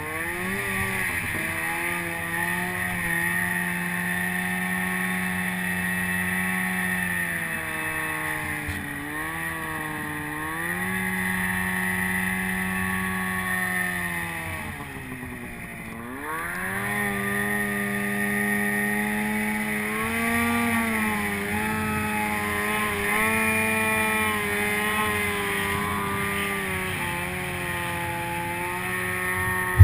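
Snowmobile engine running under throttle through deep snow, its revs mostly steady with a small dip about a third of the way in. About halfway through the throttle comes off and the revs fall low, then climb back up. A brief sharp knock right at the end.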